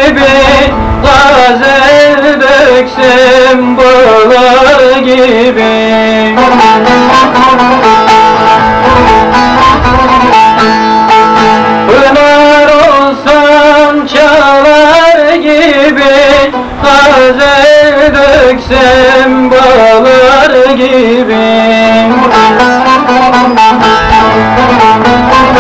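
Long-necked bağlama (saz) plucked in a Turkish folk-song melody, with a man singing along to it.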